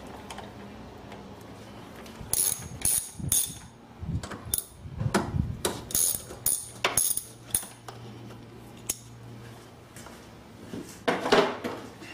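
Ratchet wrench clicking in several short runs as the 10 mm bolts holding the air filter housing are loosened, with a louder clattering knock near the end.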